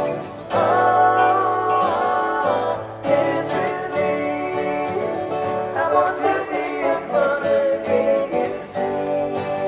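Three acoustic guitars strummed together with singing, an unamplified acoustic song performance.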